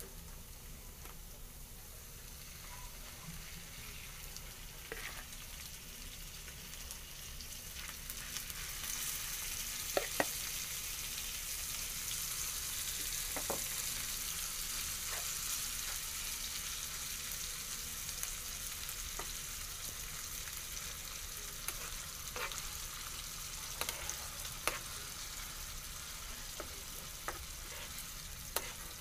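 Raw ground meat sizzling in hot oil with onion and garlic in a nonstick frying pan. The sizzle grows louder about eight seconds in as the meat heats, with scattered sharp clicks of a spatula against the pan.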